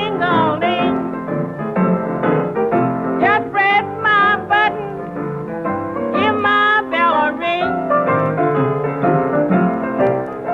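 1930s blues record with piano, a band playing the closing passage with no sung words. High notes waver with vibrato, heard twice, and the music ends just after. The sound is dull, cut off in the treble, as on an old 78 transfer.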